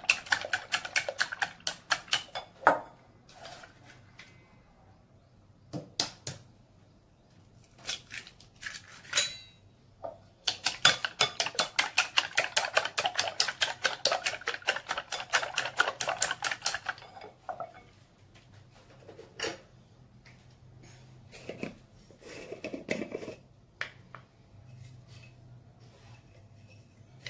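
Chopsticks beating raw eggs in a glass bowl: quick, even clicking of the sticks against the glass, several strokes a second. It comes in two spells, a short one at the start and a longer one from about ten seconds in to about seventeen, with a few single knocks between and after.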